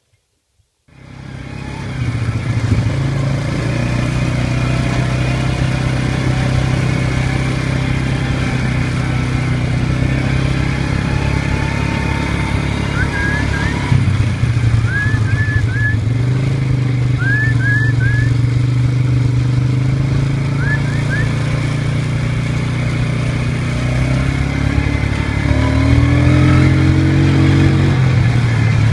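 A motor vehicle's engine running steadily while driving, starting abruptly about a second in and rising in pitch as it speeds up near the end. A few short high chirps, in twos and threes, come through in the middle.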